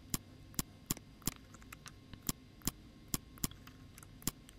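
Computer mouse buttons clicking, about ten single clicks at uneven intervals.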